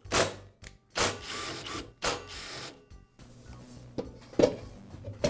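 Cordless drill/driver running in three short bursts as it backs out the screws holding a planer's side cover, followed by quieter clicks and knocks as the cover is handled and lifted off.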